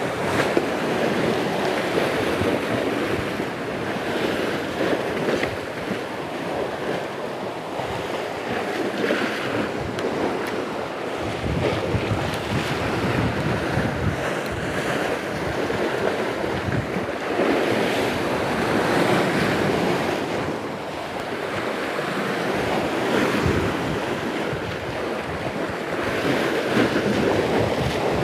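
Sea waves surging and breaking against the shore rocks, with gusting wind buffeting the microphone. The rush swells and eases every few seconds.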